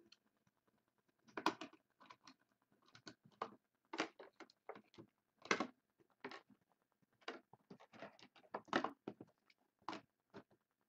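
Trading cards being handled and flipped through by hand: irregular short clicks and rustles, about two a second.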